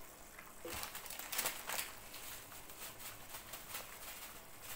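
Quiet bubbling and crackling of peas simmering in a milk-based gravy in a pan, with a run of louder crackles in the first couple of seconds.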